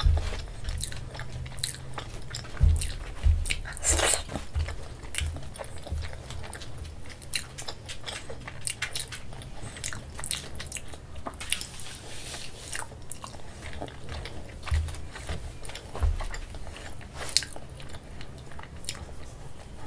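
Close-miked chewing of a soft, syrupy gulab jamun: wet mouth clicks and smacks throughout, with a few soft low bumps.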